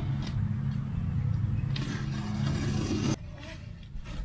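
A steady low engine hum, like a motor vehicle idling, that cuts off abruptly about three seconds in, with a few light scrapes over it.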